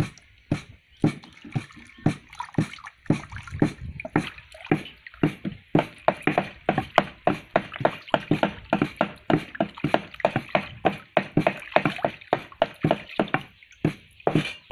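Hands splashing and rubbing peeled vegetables in a stainless-steel basin of water: quick, irregular splashes and drips, several a second.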